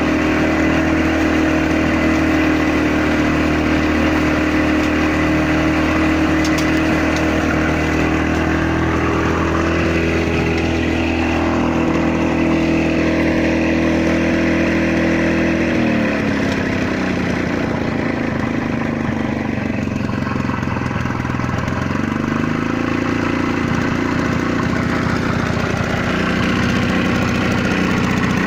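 1974 Victa Sports 160cc two-stroke lawn mower engine running steadily. About halfway through its speed drops off when the handle throttle is eased back, then climbs back up a few seconds later and holds steady again.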